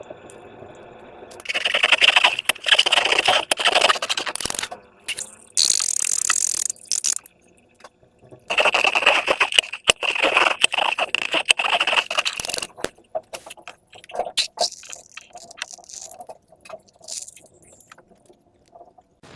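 Slime and rubber balloons being handled: two long bursts of wet, crackly scraping, broken up by many sharp clicks and ticks.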